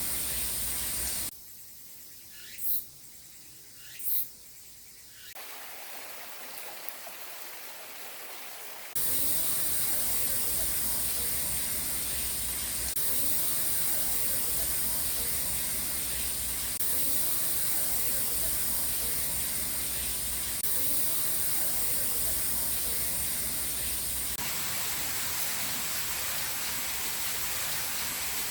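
Rushing water of a stream, a steady hiss. About a second in it drops to a quiet stretch of several seconds, where two short high chirps stand out, then the water sound returns.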